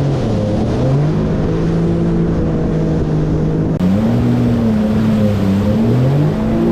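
Yamaha WaveRunner VX Deluxe personal watercraft engine running under throttle, its pitch climbing about a second in, then rising and falling with throttle changes, over a rush of water and wind.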